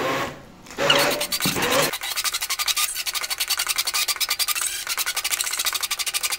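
Immersion (stick) blender puréeing stewed chicken liver, onion and carrot in a stainless-steel bowl. From about two seconds in it settles into a fast, even rattling scrape as the mixture turns to a thick paste.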